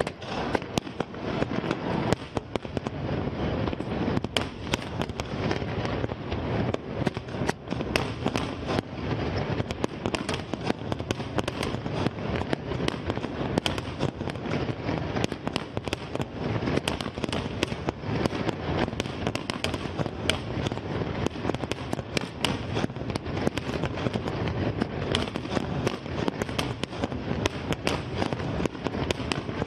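Fireworks display of aerial shells and fountains: a dense, unbroken stream of sharp cracks and pops that never pauses.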